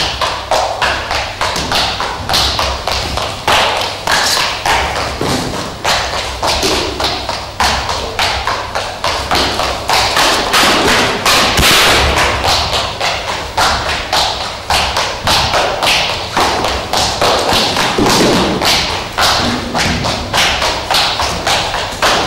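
Brisk footsteps: a person in shoes striding fast across a stage floor, a steady train of thuds at about two to three steps a second.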